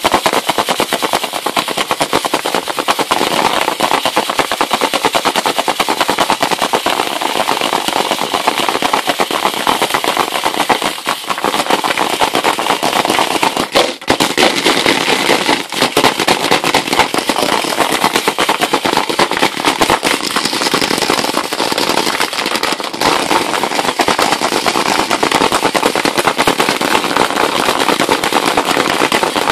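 3/4-inch ceramic milling media rattling and clattering rapidly inside a hand-shaken plastic jar, briefly easing about halfway through. The media is knocking chunky strontium nitrate into powder so that it falls through a 40 mesh screen.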